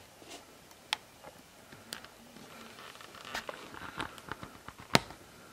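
Fabric being handled, with light rustling and scattered small clicks and taps that grow busier in the second half; the sharpest click comes about five seconds in.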